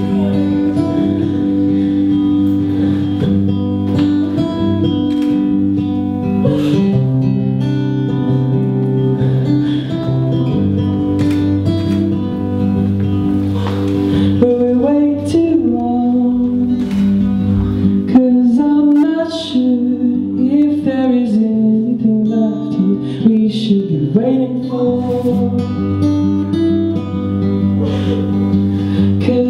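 A man singing a slow song, accompanying himself on acoustic guitar; his voice comes through more plainly in the second half.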